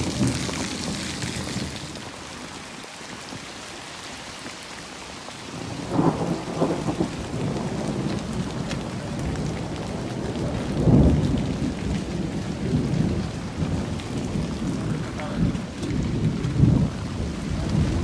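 Steady heavy rain, with low rumbles of thunder swelling several times, loudest about eleven seconds in.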